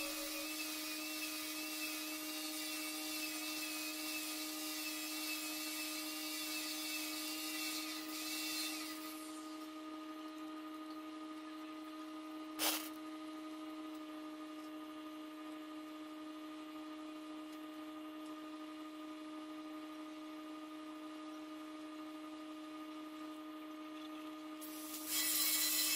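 TIG (GTAW) welding arc on a root pass, hissing with a high wavering whine, which stops about nine seconds in and starts again near the end. A steady hum runs underneath throughout, with a single sharp click near the middle.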